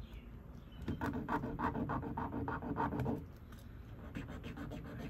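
A metal jewelry clasp rubbed quickly back and forth on an acid-testing stone, laying down a streak for a gold/sterling acid test. It makes rhythmic scratching at about six strokes a second for a little over two seconds, starting about a second in.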